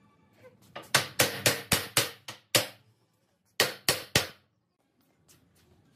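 Sharp knocks on a wooden table frame: a quick run of about seven strikes, a pause of about a second, then three more.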